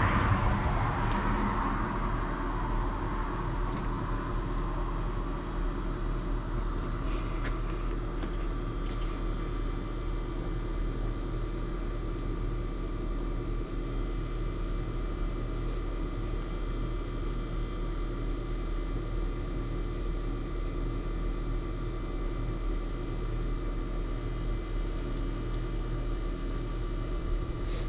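A steady machine drone: a low hum with several steady whining tones above it, and a rush of noise that fades over the first couple of seconds.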